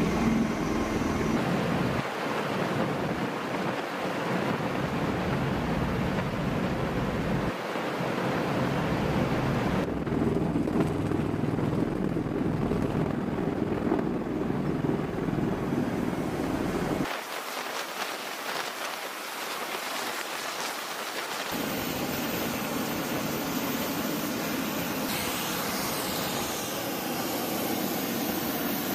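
MV-22B Osprey tiltrotor engines and proprotors running, a steady rushing noise with wind. Its tone shifts abruptly a few times.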